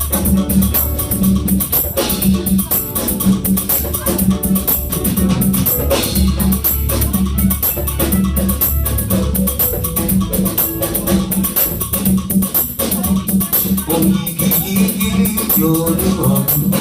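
Live worship band playing an instrumental passage between songs: drums keeping a steady beat over bass and other instruments, with no singing.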